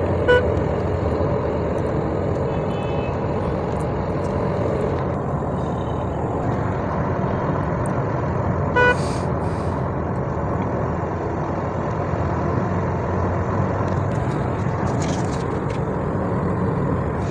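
Steady engine and tyre noise heard inside the cabin of a Toyota Corolla GLI cruising at highway speed, with a brief click about nine seconds in.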